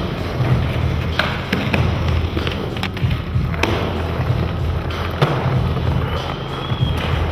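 Skateboard wheels rolling over paving stones with a steady rumble, broken several times by sharp clacks of the board.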